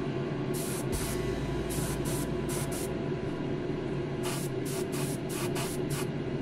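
Airbrush spraying paint in short, quick bursts, its hiss starting and stopping a dozen or so times as the trigger is worked, over a steady low hum.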